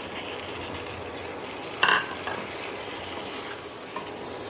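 Masala and green peas sizzling in a hot kadai while a wooden spatula stirs. A short, loud burst of sizzle comes about two seconds in as the potato pieces are tipped into the pan.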